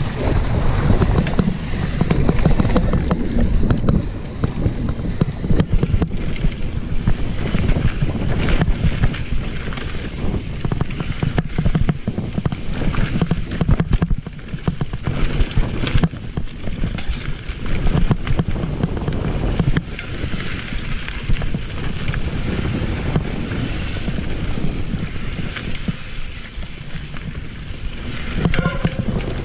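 Mountain bike descending a rough gravel and dirt trail at speed: tyres crunching over loose stones and the bike rattling and knocking over bumps, with wind rushing over the camera's microphone.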